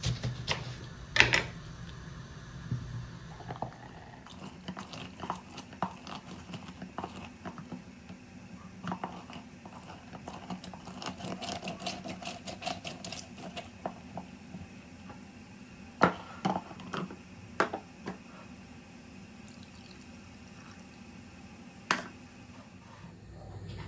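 A lemon being cut with a knife and squeezed by hand: scattered knocks and clicks, a busier stretch of wet squeezing and dripping juice in the middle, and a few sharper knocks later on.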